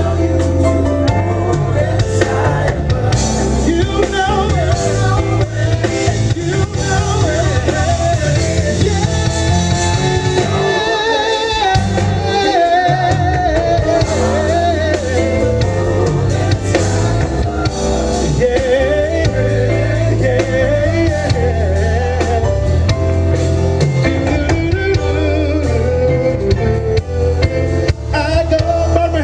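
Live soul ballad: a male lead vocalist singing with wavering, held notes over a band with drums, bass and guitar.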